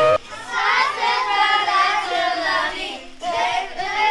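A group of children's voices singing together, right after a long held note cuts off at the start.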